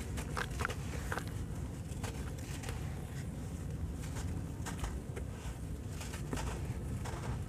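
Crumbly dried charcoal, sand and cement mix being crushed, with grit and small lumps dropping and pattering into water in a basin; many short, crisp crackles over a low rumble.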